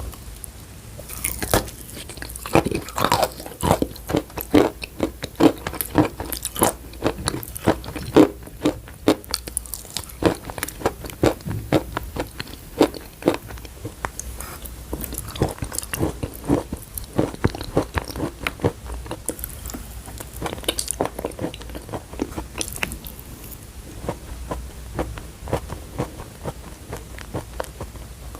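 Close-up chewing and crunching of chalk in the mouth: a rapid, irregular run of sharp crunches, louder and denser in the first half and lighter towards the end.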